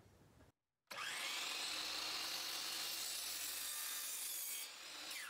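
Hercules sliding compound miter saw cutting a small block of wood. The blade spins up about a second in, runs steadily through the cut, then winds down near the end.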